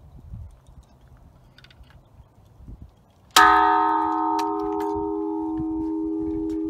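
A bell made from a cut-off steel oxygen tank is struck once about halfway through and rings on at several steady pitches, its higher overtones dying away within a second or so while the low hum keeps sounding. Before the strike there are only faint light ticks.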